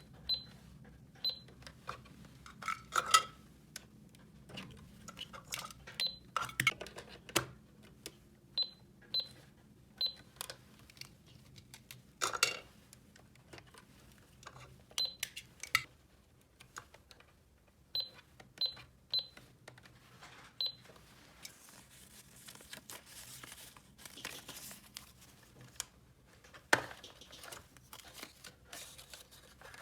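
Small plastic toy pieces being handled and set down: scattered clicks and knocks. Short high electronic toy beeps come about a dozen times, some in quick pairs or threes.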